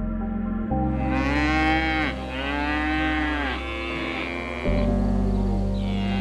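An animal making drawn-out calls whose pitch rises and falls, two in a row and a third starting near the end, over steady background music.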